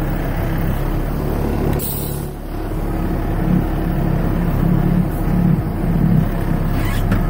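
A big truck's engine running steadily at low speed, heard from inside the cab, with its level pulsing for a few seconds in the middle. A brief hissing burst comes about two seconds in and another near the end.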